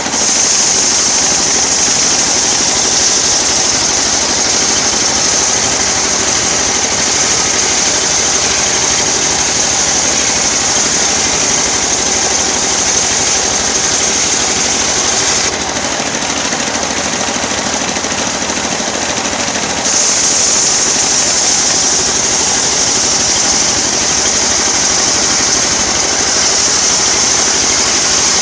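Engine-driven homemade circular sawmill running steadily, its blade ripping through teak with a bright high hiss. The hiss drops out for a few seconds past the middle, then comes back.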